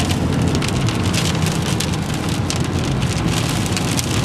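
Rain pattering hard on a car's roof and windshield, a dense crackle of drops over the low rumble of the car.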